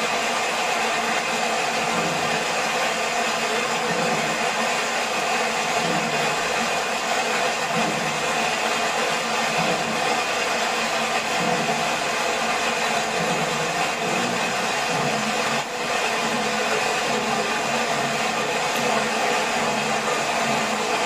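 Steady rush of falling water from a waterfall, even and unbroken, with a brief dip about three-quarters of the way through.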